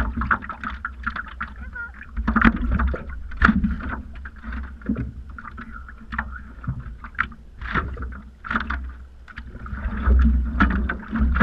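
Stand-up paddleboard paddle strokes dipping and splashing in the water, in short irregular strokes over a steady low rumble.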